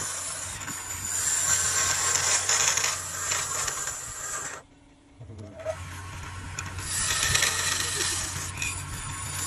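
Flat scraper cutting a spinning wooden vase on a wood lathe: a steady rasping hiss of steel shaving the wood over the low hum of the lathe. The sound breaks off for about half a second near the middle, then the cut picks up again louder.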